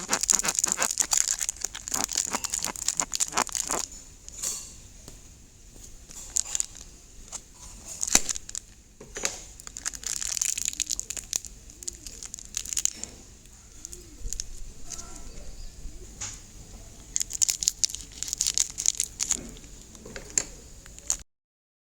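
Slime being squeezed and stretched by hand: rapid crackling and sticky clicking. It is dense at first, then eases off and returns in bursts.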